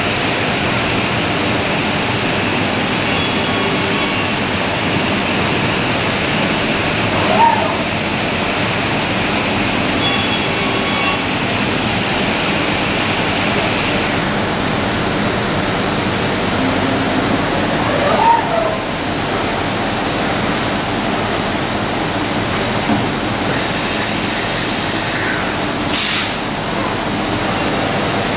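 Tech Z5 five-axis woodworking CNC machining centre running, a steady loud rushing noise, with a few short spells of high-pitched whine and a couple of brief squeal-like glides as its tools machine the wooden workpiece.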